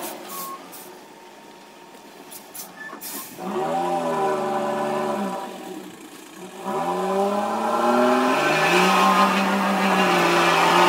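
Heavy log truck's diesel engine labouring under load: after a few quiet seconds it revs up hard, eases off, then revs up again and holds high.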